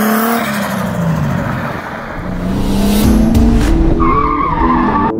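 A drift car driven hard, its engine running at high revs while the tyres squeal in a slide, with a wavering high squeal near the end.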